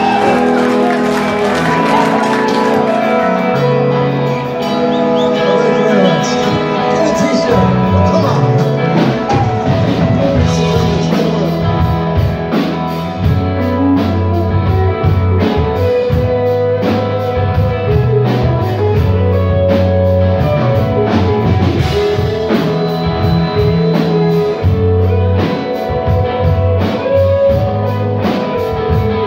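Rock music: electric guitar, bass and drum kit playing.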